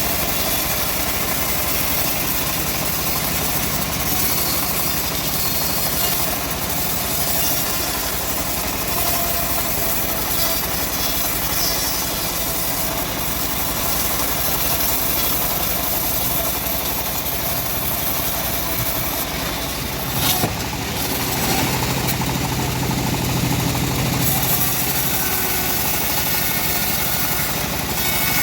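Homemade bandsaw sawmill running steadily as it saws through a log, with a sharp knock about twenty seconds in.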